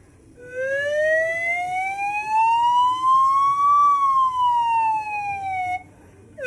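Bansuri (bamboo flute) imitating an ambulance siren: one long tone that glides slowly up and then back down, starting about half a second in and stopping about a second before the end.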